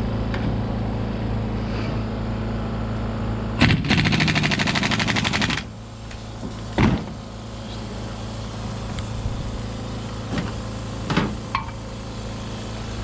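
An impact wrench rattles for about two seconds, starting a few seconds in, running down bolts freshly coated with Loctite, most likely the ring gear bolts. A steady low hum runs underneath, and a few sharp metal clinks follow.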